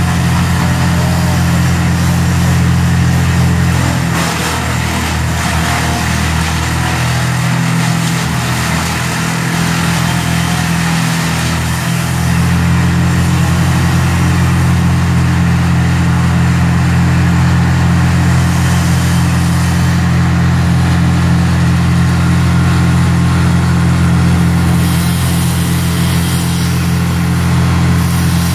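A large engine runs steadily with a deep, even hum. The hum wavers and shifts for several seconds in the first half, then settles again.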